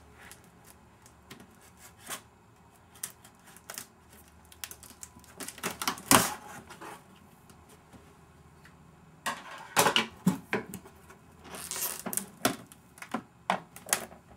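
Packaging being handled while a computer box is unpacked: scattered clicks, knocks and rustles of cardboard and wrapping. There is a loud knock about six seconds in, and a busier stretch of knocks and rustling from about nine to thirteen seconds.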